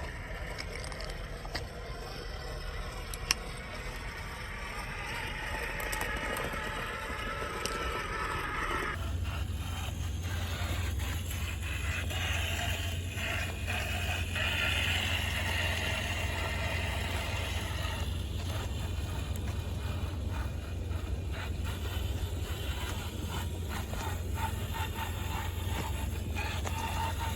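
Small electric RC crawler running over rock and gravel: motor and gear whir with tyres scraping on rock, over a steady low rumble. The sound changes abruptly about nine seconds in.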